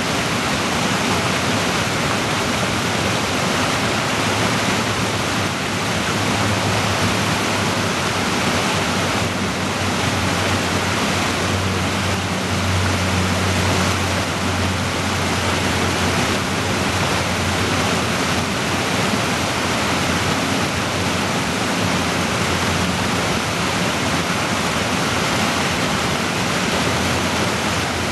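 Whitewater creek rushing steadily over boulders and small drops in a narrow rock gorge.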